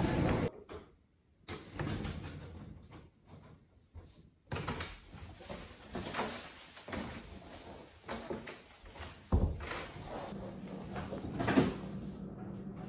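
Shop background noise cuts off about half a second in, then a wooden interior door is handled: knob and latch clicks, a thump a little past the middle as it shuts, and a sharp knock near the end.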